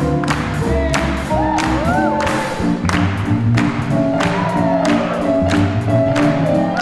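Live swing jazz band playing an up-tempo tune, with horns over upright bass and drum kit, the drums keeping a steady beat of about two strokes a second.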